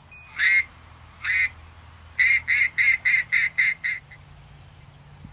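Duck quacks: two single quacks, then a fast, even run of seven, in the pattern of a mallard hail call used to draw a retriever's eye to a mark.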